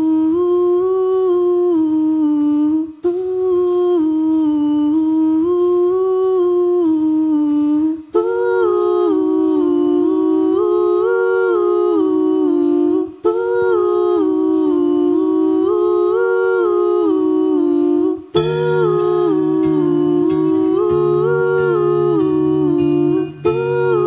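A woman singing a wordless melody into a microphone, in repeated phrases of about five seconds with short breaths between them; the phrase moves higher about a third of the way through. Near the end, low sustained notes come in underneath the voice.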